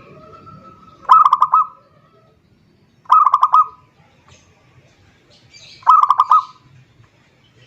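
Zebra dove (perkutut) cooing: three short, fast-pulsed trilled phrases about two to three seconds apart.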